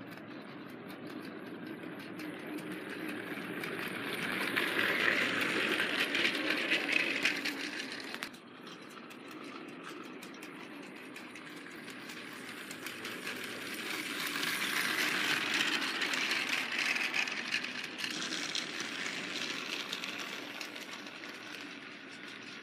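Battery-powered Trackmaster 2.0 Gordon toy engine running on plastic track: the motor's whir and the rattle of its wheels grow louder and fade away twice as it passes close by.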